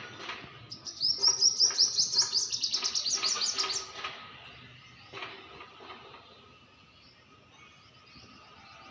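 A small bird singing a fast run of high, short chirps for about three seconds, starting about a second in, then fainter scattered calls.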